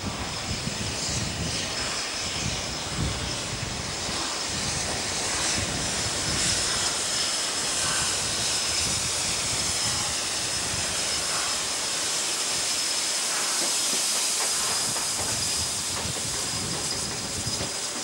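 Broad-gauge steam locomotive 520, South Australian Railways 520 class, running in alongside the platform and passing close by, with a steady hiss of steam.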